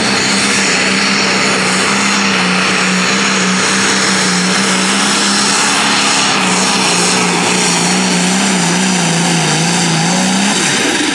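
Super stock pulling tractor's engine running flat out under full load while dragging the weight sled, a loud steady drone with a high whine above it. Near the end the engine pitch sags, picks up briefly, then the engine backs off.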